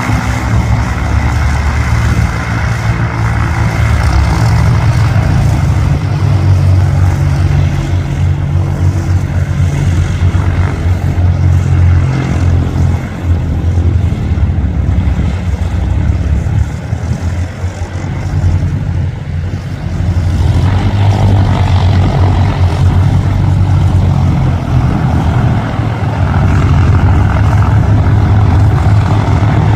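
Cessna light aircraft's piston engine and propeller running on the ground, a loud, steady low drone that eases off somewhat in the middle and builds up again after about 20 seconds.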